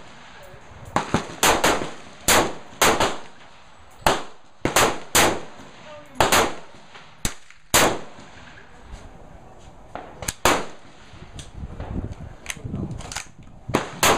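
CETME battle rifle firing .308 Winchester rounds in semi-auto: a string of sharp shots at uneven intervals, some about half a second apart and some several seconds apart, with a few fainter shots in between.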